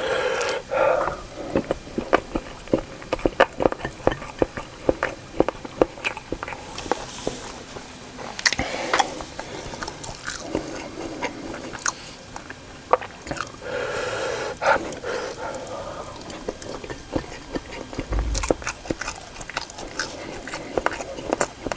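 Close-miked eating of spicy meatballs and rice: chewing and biting with many sharp, wet mouth clicks.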